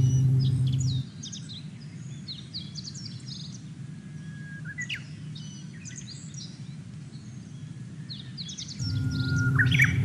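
Japanese bush warbler (uguisu) singing its 'hoo-hokekyo' song twice, about halfway and again near the end: a long steady whistle, then a quick rising and falling flourish. Short high chirps run throughout. A low steady rumble fills the first second and comes back near the end.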